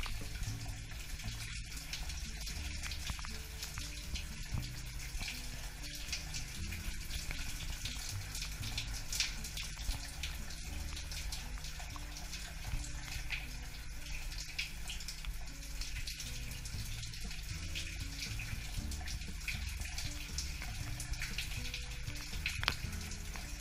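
Shower water running steadily, with background music underneath.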